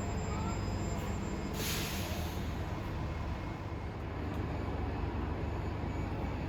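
Bus engine running with a steady low rumble, and a short hiss of air about one and a half seconds in, like an air brake release.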